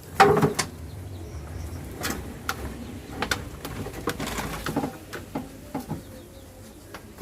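Hands digging and scraping through loose compost-and-sand soil, with soil falling onto a galvanized metal sheet in irregular scrapes, rustles and taps.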